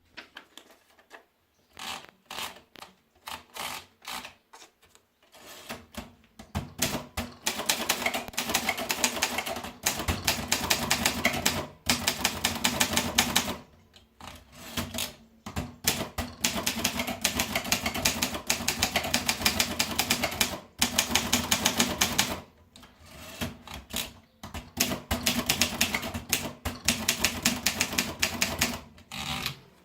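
Kappel typewriter being typed on: a few scattered key strikes at first, then fast runs of typing broken by short pauses.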